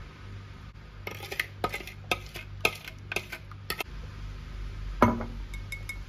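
Dishes and cutlery clinking: a run of light clinks for a few seconds, then one louder knock with a short ring about five seconds in, followed by a few faint ticks.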